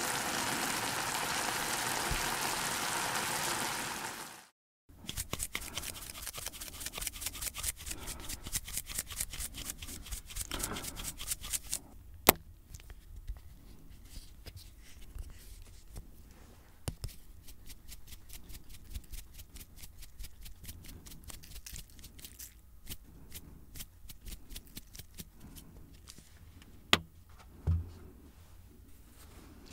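Jjapagetti noodles in black-bean sauce sizzling in the pan, a steady hiss that cuts off after about four seconds. Then a shaker of Korean red chili powder (gochugaru) is shaken rapidly over the noodles, a fast run of dry rattling taps that thins to scattered lighter taps, with a sharp click about twelve seconds in and two knocks near the end.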